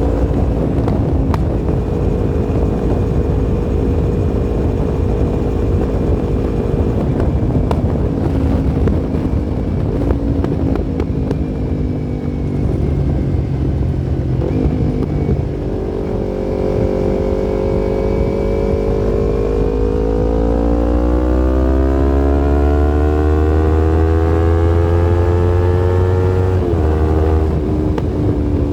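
Yamaha MT-25's 249 cc parallel-twin engine running. Its note holds fairly level, falls back about halfway through, then climbs steadily for about six seconds as it accelerates before dropping sharply near the end.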